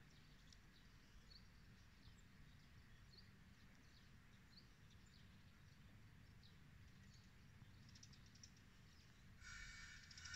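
Near silence: faint outdoor ambience with a few short, distant bird chirps.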